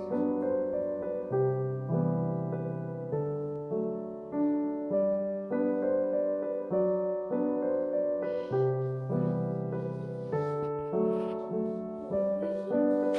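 Soft background piano music with a gentle repeating melody.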